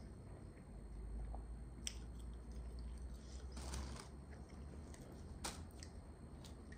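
A person chewing meat close to the microphone, quiet mouth sounds with a couple of sharp clicks, one near two seconds in and one past five seconds.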